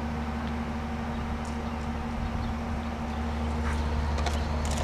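A steady low hum with a constant tone under it, and a few faint clicks near the end.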